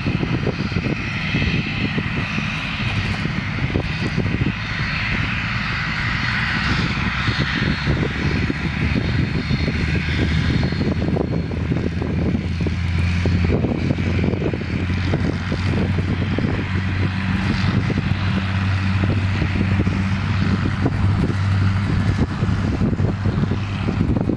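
Single-engine high-wing light aircraft's piston engine and propeller running steadily, its engine tone growing stronger about halfway through.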